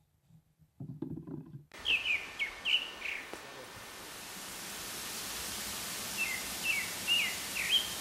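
A small bird calling in short, falling chirps: a quick group of four about two seconds in and another group of four near the end. The chirps sit over a steady hiss that swells slightly, and a brief low rumble comes about a second in, before the calls.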